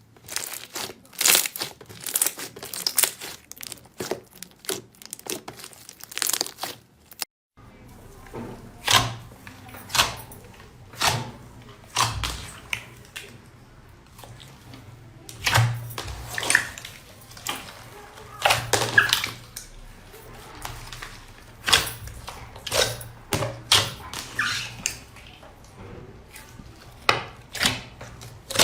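Slime being pressed and pulled by hand, making crackling pops and clicks at irregular intervals. About seven and a half seconds in, the sound cuts to another take with a steady low hum underneath.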